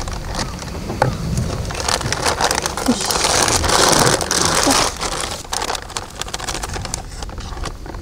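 Dry herabuna bait powder poured from its bag into a bowl, with the bag rustling and crinkling. A hissing pour is loudest from about three seconds in to nearly five.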